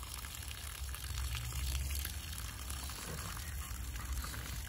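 Water running from an open garden hose with no nozzle, pouring and splashing steadily onto grass.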